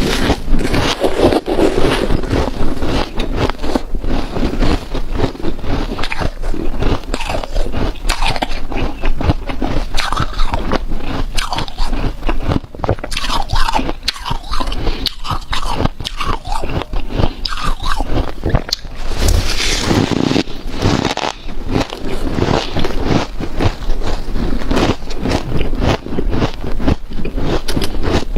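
Close-up biting and chewing of snow-like powdered ice, some of it with hard ice bits embedded: dense, continuous crunching made of many small crunches in quick succession.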